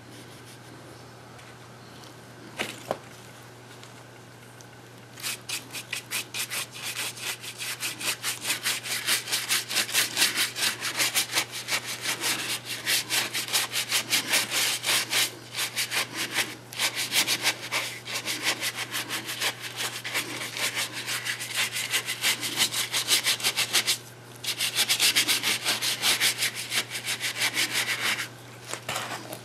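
Paintbrush scrubbing brown paint onto a hollow papier-mâché coconut in rapid back-and-forth strokes, starting about five seconds in, with a brief pause near the end.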